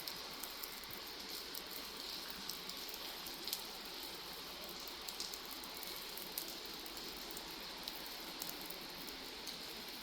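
Steady rainfall, with scattered sharp ticks of individual drops.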